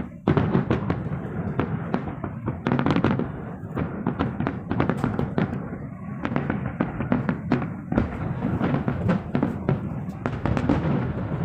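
Fireworks display: a rapid, continuous barrage of sharp bangs and crackles over a steady low rumble.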